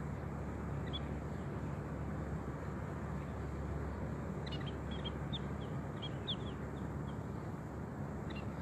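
Short, high chirps of small birds, munias: one about a second in, a scattered run of about a dozen from four and a half to seven seconds in, and a couple near the end. They sit over a steady low background rush.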